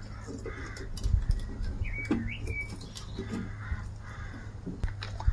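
A small bird chirps briefly, a quick wavering call about two seconds in, over a steady low hum and a few scattered light clicks.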